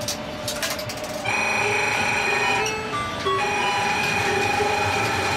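Coin-operated Shinkansen kiddie-ride train: a few clicks at the coin slot, then about a second in its electronic tune starts up, a simple melody of steady held notes, as the ride begins to move.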